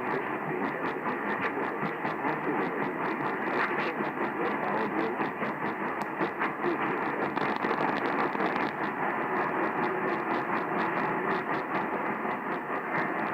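Radio receiver static: a steady hiss with crackling clicks all through it and no programme audible over it.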